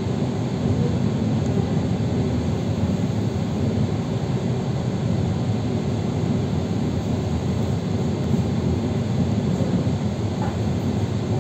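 Electric commuter train running between stations, heard from inside the carriage: a steady low rumble of wheels on rails and running gear.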